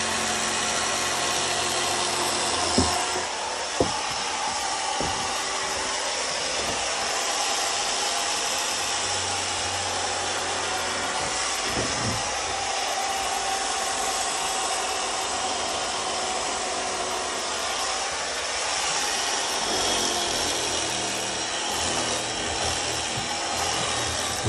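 Electric foam-cutting saw running steadily as its long reciprocating blade slices through motorcycle seat foam. There are two sharp knocks about three and four seconds in.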